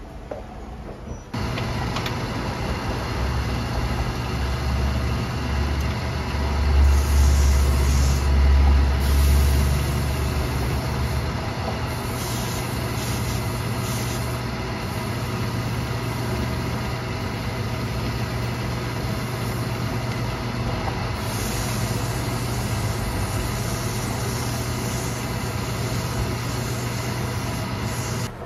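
Cobbler's shoe finishing machine running steadily, its motor humming and a spinning buffing wheel working against a leather boot upper. It starts about a second in and swells into a heavier low rumble for a few seconds, about seven to ten seconds in.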